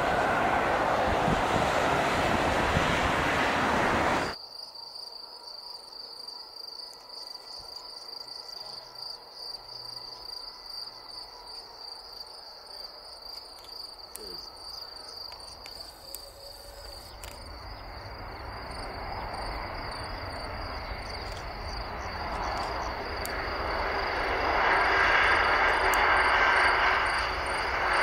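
Airbus A330 jet engines on landing: one airliner's loud, even engine noise on its landing roll stops abruptly about four seconds in. Then insects chirp steadily at a high pitch while a second A330's engine noise grows from quiet to loud over the last ten seconds as it touches down and rolls out.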